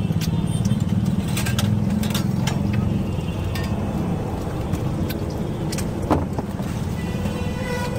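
Steel spatula scraping and clicking against a large flat iron griddle (tawa) while spreading a topping, a scatter of sharp metallic clicks over a steady low rumble.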